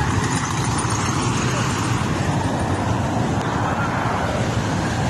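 Steady rumble of a moving vehicle with traffic noise, and faint voices underneath.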